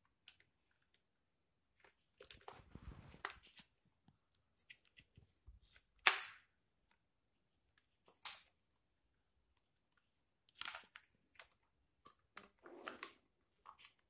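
Light plastic clicks, taps and rattles from handling a toy RC rock crawler's plastic chassis while its battery compartment cover is fitted back over the cells, with one louder click about six seconds in.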